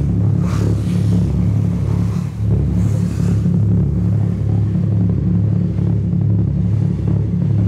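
Ferry's engines running with a steady low drone.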